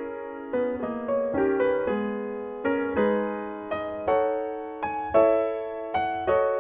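Solo Steinway & Sons grand piano played by hand: notes and chords struck about two to three times a second, each ringing on and fading.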